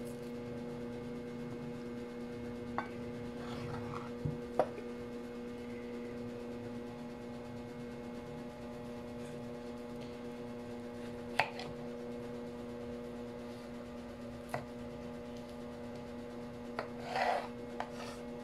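Kitchen knife working a boiled sweet potato on a wooden cutting board: a few scattered light knocks and taps, then a short scraping cut near the end. A steady hum runs underneath.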